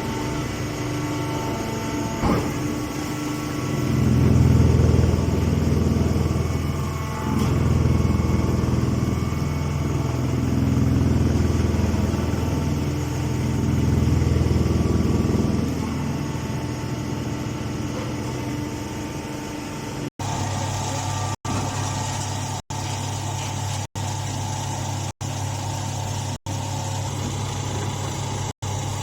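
Pine straw baler machine running with a steady mechanical hum. The hum swells louder three times in the first half, then settles into a steadier hum broken by brief cut-outs about every second and a quarter.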